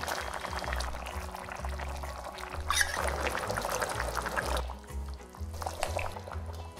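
Water poured from a glass into a pan of simmering chicken stew, a splashing pour lasting a couple of seconds about halfway through, over soft background music.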